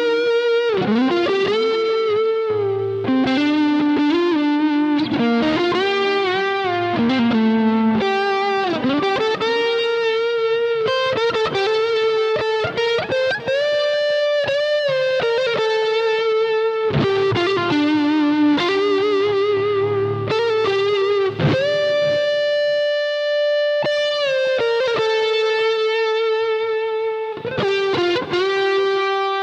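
Overdriven electric guitar playing a singing single-note lead melody, with held notes, bends and wide vibrato, from a Tom Anderson guitar through a Bluguitar Amp1, recorded direct from the amp's record out. A long sustained note rings out a little past the middle.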